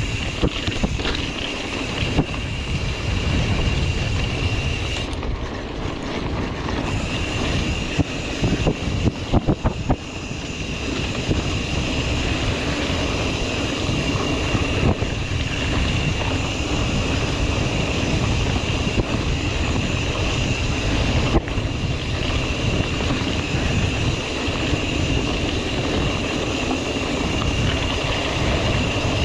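Wind buffeting the microphone over mountain bike tyres rolling on a rough dirt trail, with scattered knocks and rattles from the bike. A steady high-pitched buzz runs underneath, dropping out for a couple of seconds about five seconds in.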